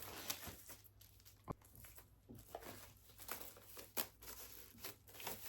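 Faint crinkling and tearing of plastic shrink-wrap on a vinyl record's cardboard sleeve, with scattered light clicks and taps as it is handled.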